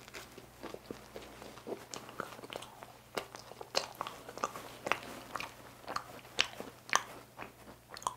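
A person chewing a mouthful of cream-filled flaky pastry (saeng-cream pandoro), with irregular crisp crackles and clicks of the laminated crust and wet mouth sounds.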